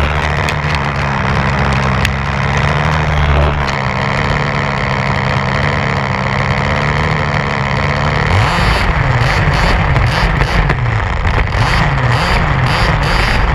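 Two-stroke petrol engine of a 1/5-scale HPI Baja 5b RC buggy running at a steady speed, changing note at about 4 seconds in. From about 8 seconds in, it revs up and down over and over as the throttle is worked.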